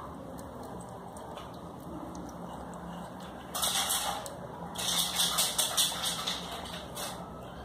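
Fingertips rubbing a gram flour and milk paste over the nose: a soft scrubbing hiss about three and a half seconds in, then a quick run of rubbing strokes, about five a second, for a second and a half.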